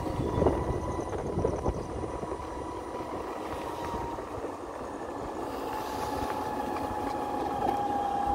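Electric vehicle on the move: a steady motor whine that dips slightly in pitch about halfway through, over a low noisy rumble.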